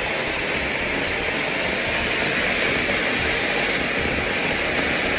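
A steady rushing hiss that holds level throughout, with no distinct strikes or tones.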